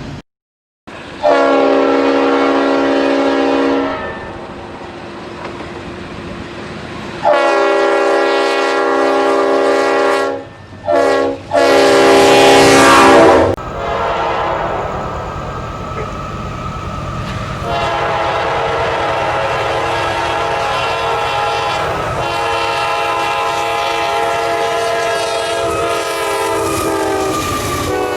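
Locomotive air horn sounding a grade-crossing pattern: two long blasts, short ones, then a long one. A steady sustained horn follows, dropping slightly in pitch near the end.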